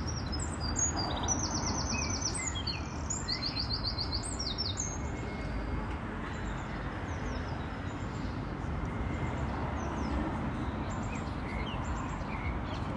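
A small bird singing fast trills of high repeated notes for the first few seconds, then a few fainter chirps, over a steady low rumble of city background noise.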